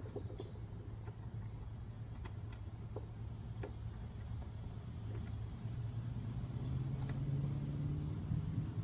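Light clicks and taps of a carry handle being fitted onto the side of a portable 12-volt compressor fridge. A low engine hum rises and grows louder in the second half, and a few short high chirps come through three times.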